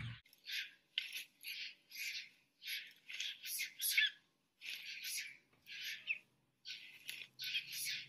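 Long-tailed macaque screaming over and over in distress while held in a Komodo dragon's jaws: short, harsh, high shrieks about two a second, with a few brief pauses.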